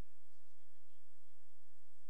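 Steady electrical hum and whine with several fixed tones over faint hiss, the background audio of an ROV dive recording between the crew's remarks.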